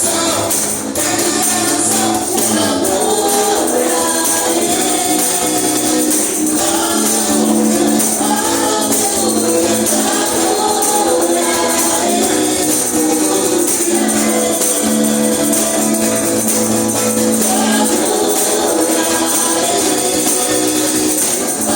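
Live gospel worship band playing an upbeat song, with a group of voices singing together and a tambourine jingling steadily throughout.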